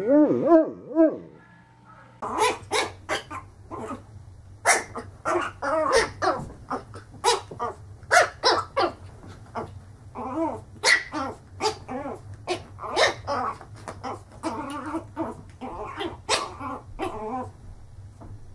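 A large mastiff-type dog's wavering, warbling moan that fades out about a second in. After a short pause, a fluffy puppy barks over and over in short, high yaps, about two a second, at its own reflection in a mirror, stopping just before the end.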